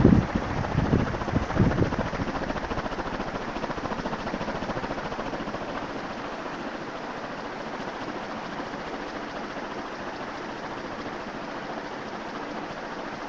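Early-to-mid-1960s SMC H56 ceiling fan running: a steady rush of moving air with motor noise. Gusty buffeting from the fan's draught on the microphone dies away over the first few seconds, leaving an even whir.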